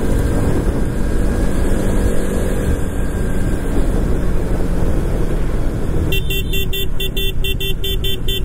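Motorcycle riding in traffic: the KTM 200 cc's engine and rushing wind on the microphone. About six seconds in, a horn beeps rapidly, about four or five beeps a second, for roughly three seconds.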